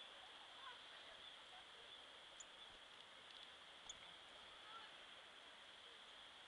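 Near silence: faint outdoor ambience, a steady high hiss with a few faint chirps and small clicks.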